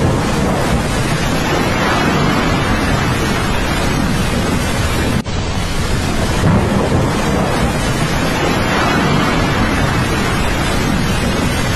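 Loud, steady roar of a flash flood's rushing water, dropping out briefly about five seconds in.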